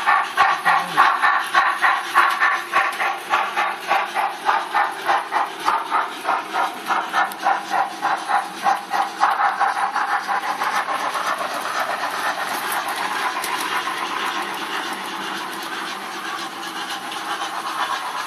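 HO scale model steam locomotive's sound system chuffing in a steady rhythm of about three beats a second, with hiss. After about nine seconds the beat fades into a steadier hiss and rolling noise.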